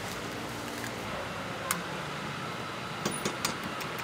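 Steady hum of a busy night-market stall with faint voices, broken by a few sharp clinks of stainless-steel ingredient cups being handled: one a little under two seconds in and a quick cluster about three seconds in.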